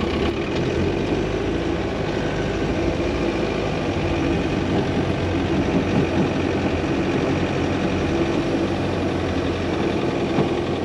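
Recovery truck's engine running steadily under load while towing.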